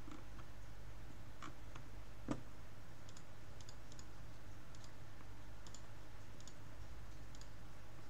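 Scattered clicks at a computer over a low steady hum. A few clicks come in the first two and a half seconds, the loudest a little over two seconds in, followed by fainter light ticks.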